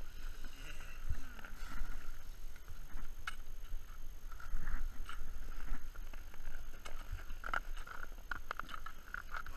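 Crampons and gloved hands crunching and scraping on hard snow and ice in scattered short clicks, over a low rumble of wind on the microphone.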